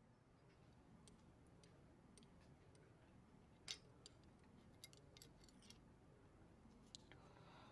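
Near silence with a scatter of faint, small clicks and ticks, the loudest a little under four seconds in, from a glass medicine bottle and a metal spoon being handled while syrup is poured.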